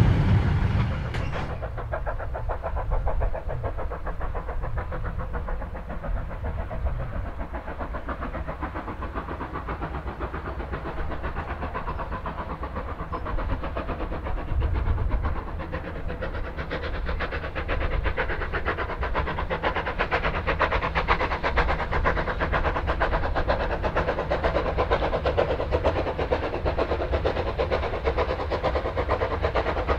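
Steam train running on the line with a continuous fast rhythmic clatter. A louder low rumble dies away in the first two seconds, and the running grows louder in the second half.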